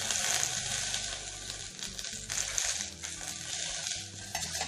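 Fresh mint leaves sizzling as they fry in a metal pot, with a spoon stirring and clinking against the pot near the end.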